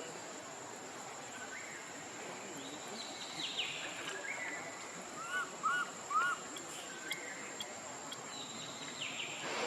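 Short high-pitched animal calls: a few falling squeaks, then three loud arched chirps in quick succession a little past the middle, over a faint steady hiss.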